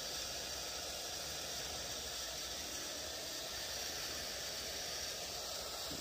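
Hot air gun blowing a steady hiss of hot air, shrinking heat-shrink tubing over a crimped battery-cable lug.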